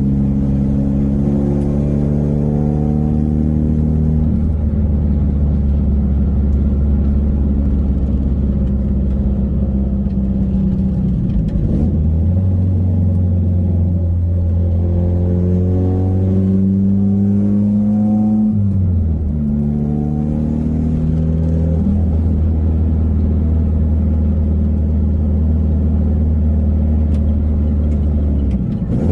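Saturn Ion Redline's supercharged four-cylinder running while driving: a steady engine drone whose pitch climbs several times under acceleration, with a sudden drop in engine note about two-thirds of the way through, like a gear change.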